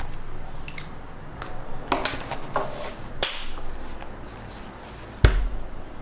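Close handling sounds: scattered clicks and rustling from a paper notebook being picked up and opened, then a sharp knock with a low thud about five seconds in.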